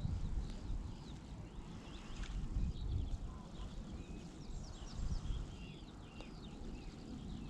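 Small birds singing: many short chirps and trills overlapping, as in a dawn chorus, over a steady low rumble.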